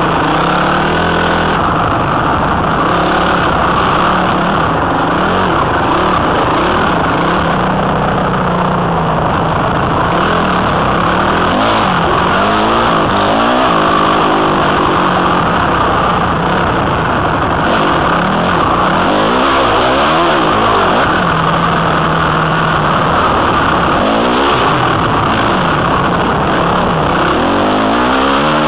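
A Honda CRF250 dirt bike's single-cylinder four-stroke engine, heard close from a helmet camera while the bike is ridden along a bush trail. The engine pitch rises and falls again and again as the throttle is worked and the gears change, with air rushing past the microphone.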